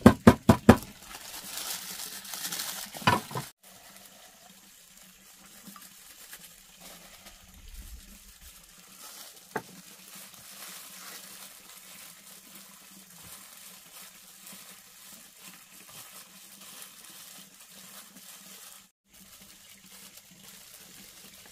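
Rapid, regular chopping on a board, about six strokes a second, stopping about a second in, followed by a few seconds of splashing water. After that only faint, steady background noise with an occasional click.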